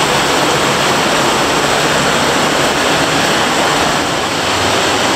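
Cave stream rushing and splashing steadily over rock, a loud, even water noise in a narrow cave passage.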